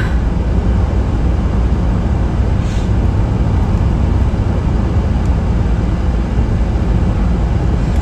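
Steady low rumbling background noise between sneezes, with a brief soft hiss about two and a half seconds in.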